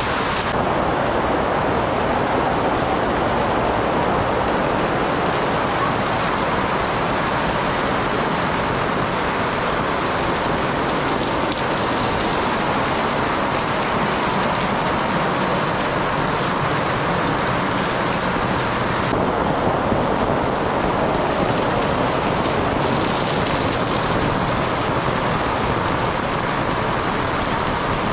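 Torrential rain pouring steadily onto a concrete alley, a dense even hiss of rain on hard surfaces. The hiss dulls for a few seconds about two-thirds of the way through.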